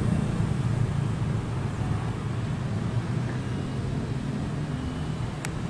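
Small electric RC airboat's motor and pusher propeller running steadily as it cruises, with a single sharp click about five and a half seconds in.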